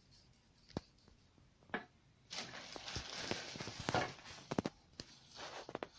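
Faint rustling with scattered sharp clicks and taps, the sound of thread and embroidery work being handled while the thread is changed.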